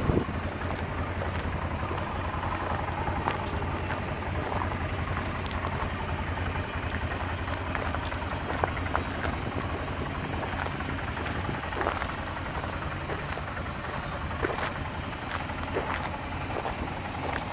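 2018 Arctic Cat Alterra TBX 700 ATV engine running steadily as it is ridden over gravel, with scattered clicks and crunches from the tyres on the stones.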